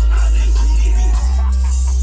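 Hip-hop track playing loud through a car audio system, dominated by deep sub-bass from two Alpine Type R 12-inch subwoofers; the bass note changes a little past a second in.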